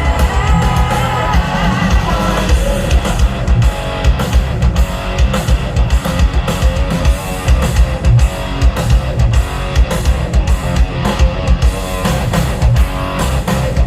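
Rock music with electric guitar and a drum kit, played loud through an RCF HDL 30 line-array PA with Sub 9006 subwoofers, the bass heavy and beating steadily.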